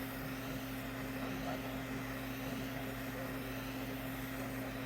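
Steady hiss of a jeweler's soldering torch flame, turned down low to warm a silver piece, over the even hum of a fume fan.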